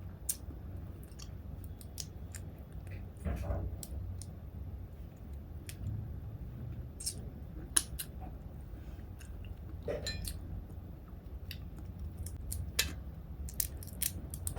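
Crab being eaten: irregular sharp clicks and cracks of crab shell being handled and broken, with chewing.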